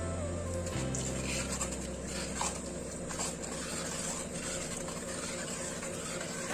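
Soft background music with a low, steady tone that shifts about a second in, over a light hiss and a few faint clicks of a spoon stirring in the pot.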